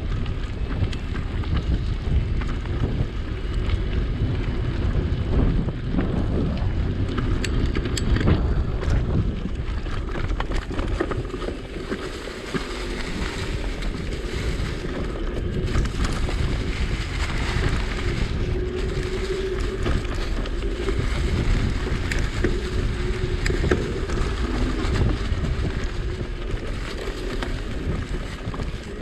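Wind buffeting a GoPro Hero7's microphone during an electric mountain bike ride, a steady low rumble with tyre and road noise underneath.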